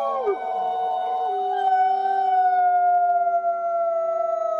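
A chorus of wolves howling together, several voices at different pitches overlapping. One voice drops steeply just after the start, while the others hold long notes that slowly fall.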